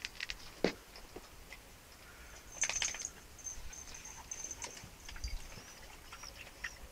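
Small birds twittering faintly in the background, over scattered rustles and clicks from small dogs moving through grass.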